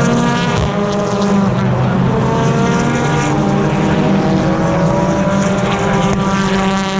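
Several BTCC touring cars with turbocharged four-cylinder engines running loudly past on the circuit. Overlapping engine notes rise and fall in pitch as the cars come and go one after another.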